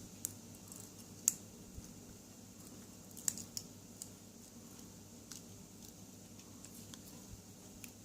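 Scattered light clicks and taps of small tools working in a pin tumbler lock being gutted, freeing a stuck spring or pin. A few are sharper, the loudest about a second in and a pair near the middle.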